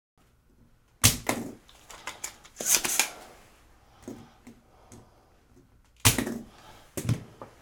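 Spring-loaded vacuum desoldering pump (solder sucker) being cocked and fired to pull molten solder off circuit-board joints: several sharp clicks and snaps, the loudest about a second in and again about six seconds in.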